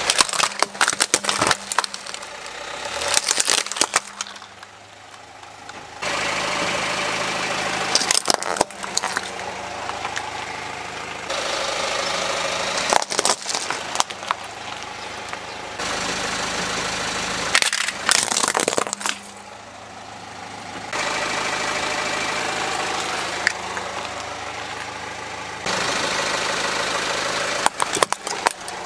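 A car's tyre rolling over plastic toys and crushing them: several bursts of sharp cracking and crunching, each a second or two long, about every five seconds. A car engine idles steadily underneath.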